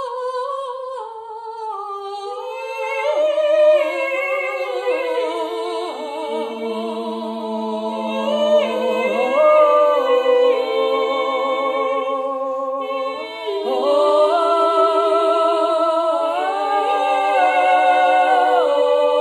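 Three women singing a wordless a cappella vocal improvisation on long-held vowels, the voices layered in close harmony with vibrato. One voice leads at first and the others join within the first few seconds; after a brief dip about 13 seconds in, all three come back in a fuller chord.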